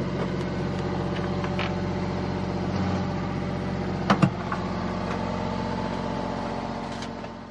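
Rainman watermaker's pressure unit running with a steady hum during the freshwater rinse, with one sharp click about four seconds in; the hum fades out near the end.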